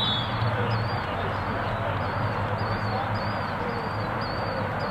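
Steady outdoor background noise with a faint, high chirp repeating about twice a second.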